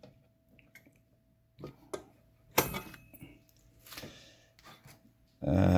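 Typewriter being handled and opened up: a few scattered light clicks and one sharper knock about two and a half seconds in, then a short hummed vocal sound near the end.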